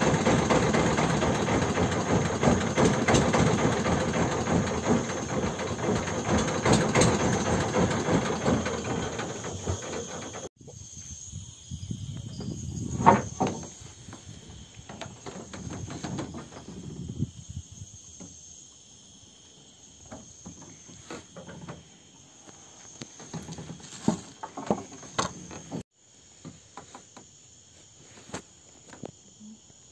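A small boat's engine running loud and steady for about ten seconds, cut off abruptly. After that comes a steady high-pitched insect chorus of crickets, with a few light knocks.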